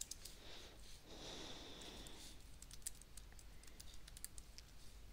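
Computer keyboard being typed on: faint, irregular keystroke clicks, with a soft hiss lasting about a second starting about a second in.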